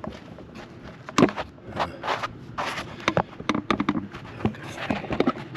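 Handling noise as a camera is picked up and repositioned: irregular clicks, knocks and rustles, loudest about a second in.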